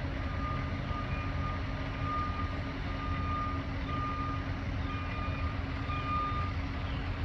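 A steady low rumble, with a short high electronic beep sounding on and off about once or twice a second.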